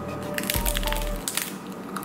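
A thin, papery oblea milk-candy wafer cracking and crunching as it is bitten, with a run of sharp crackles through the middle, loudest about a second and a half in.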